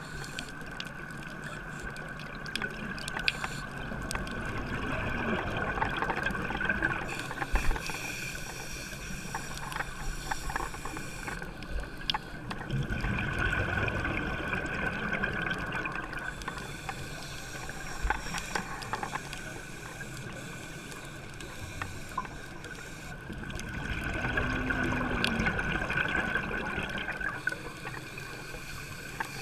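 Scuba breathing heard through an underwater camera housing: three slow swells of regulator breath and exhaled bubbles about ten seconds apart, over a muffled underwater background with scattered small clicks.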